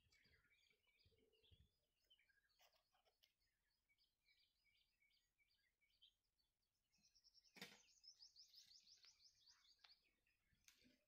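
Faint wild birdsong: scattered high chirps, then a rapid trill of repeated high notes from about seven to ten seconds in. A single sharp click comes just before the trill.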